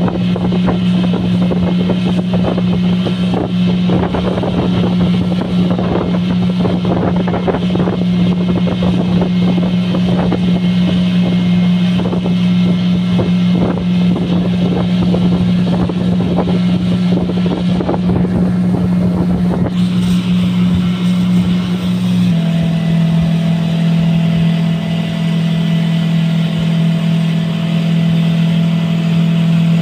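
Mercury outboard motor running steadily at speed while towing a banana boat, with the rush of water and wind over it. About two-thirds of the way through, its pitch steps slightly lower.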